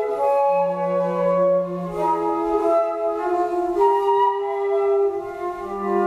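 Flute quartet of two concert flutes, alto flute and bass flute with a B-flat clarinet playing slow chamber music: overlapping held notes in several parts, the chord shifting every second or two, with a low held note near the start and another near the end.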